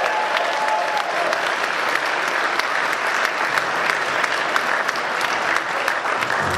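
Theatre audience applauding: many hands clapping at once in a steady, even ovation.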